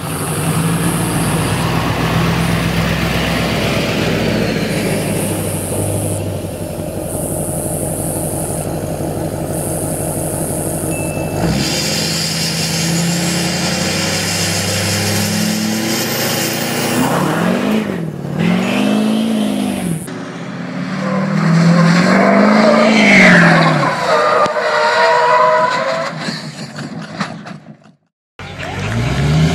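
Duramax V8 turbo-diesel pickup running hard and accelerating, its engine note rising and falling several times. The sound cuts out about a second before the end, and another diesel engine starts up loud.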